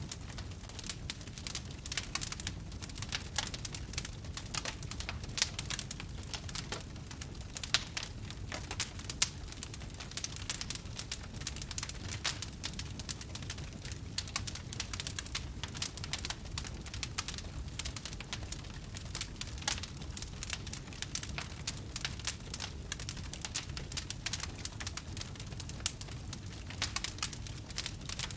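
Wood campfire crackling: a dense, irregular run of sharp pops and snaps over a steady low rush of burning.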